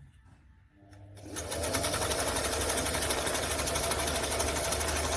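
Singer 348 sewing machine starting up about a second in, then running fast and steady, the needle stitching through a thick piece of material.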